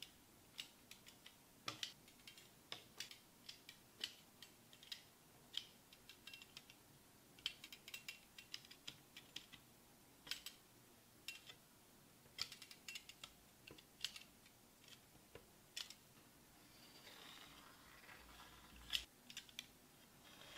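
Irregular sharp clicks and taps of a knife tip pressing through croissant dough onto the stainless steel worktop beneath, along with a ruler being set down and shifted on the steel. Near the end comes a longer scraping sound as the blade is drawn through the dough along the ruler's edge.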